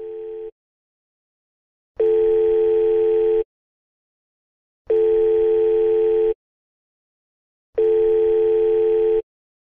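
KingsChat messenger's call ringing tone: a steady low beep about a second and a half long, repeating about every three seconds, heard three times after the end of an earlier one. It is the ringback heard while an outgoing call is ringing.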